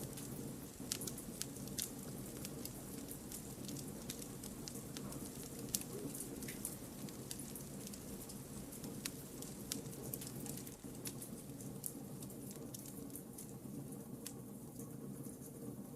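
Wood campfire burning: a steady low rush of flame, with irregular sharp crackles and pops from the burning logs.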